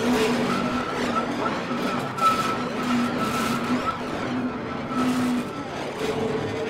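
Experimental electroacoustic music: a dense, grainy rushing noise texture with held tones, one low and one higher, that come and go. There is a sharp accent about two seconds in, and a new middle tone enters near the end.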